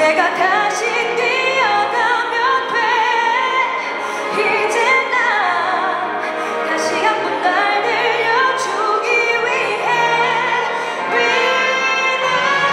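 A woman singing a slow song live into a microphone, her voice gliding between long held notes with vibrato, accompanied by an orchestra with cellos and double basses.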